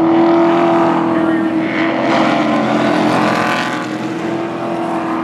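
Pro Truck race trucks' engines running at speed around the oval: a steady, loud engine drone with a fuller pass about two to four seconds in as trucks go by close.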